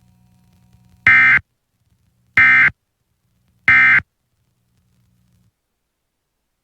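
Emergency Alert System end-of-message code: three identical short, loud bursts of buzzy digital data tones about a second and a quarter apart, signalling the end of the Flash Flood Warning broadcast.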